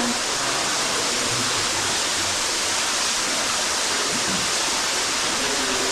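Cave waterfall: a steady, loud rush of falling water splashing down close by.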